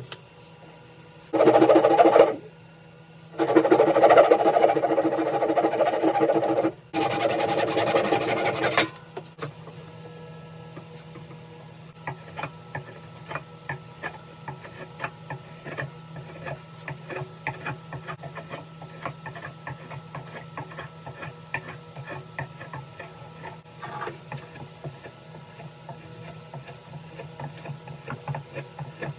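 A small electric power tool, of the kind used to clean and shape an axe head, runs in three short bursts in the first nine seconds. After that come quieter, irregular ticks and scrapes over a steady low hum.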